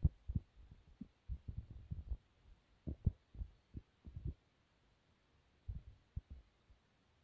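Soft, dull thumps and bumps at an uneven pace, several a second at times, with quiet gaps in the second half.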